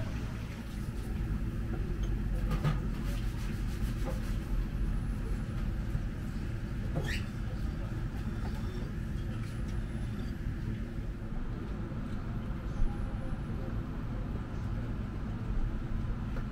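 A steady low rumble of background noise, with a few faint clicks and a short sharp tick about seven seconds in.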